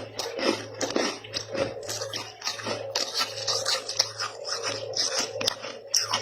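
Freezer frost being bitten and chewed close to the microphone: a quick, irregular run of wet, icy crunches. A faint steady low hum runs underneath.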